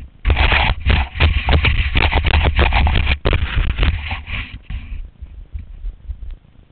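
Rough scraping and rustling of snow and gear against the camera's microphone. It is loud and dense for about five seconds, then drops to a few lighter scuffs.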